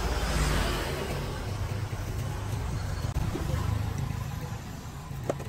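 Steady low rumble of motor-vehicle engines running in street traffic, with a short hiss in the first second.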